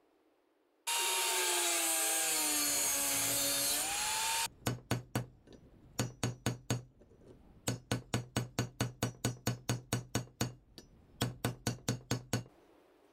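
A bench drill press drilling rivet holes through a small hammer's steel head: a loud whining run whose pitch sags and rises as the bit cuts, then cuts off suddenly. Then a hammer strikes the new rivets on an anvil, in quick runs of about four blows a second with short pauses.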